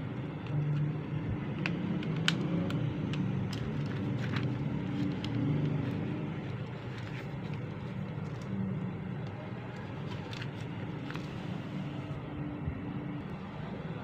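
Scattered light plastic clicks and taps from handling an opened USB numeric keypad, its case and keys knocking as it is turned over, over a steady low background rumble.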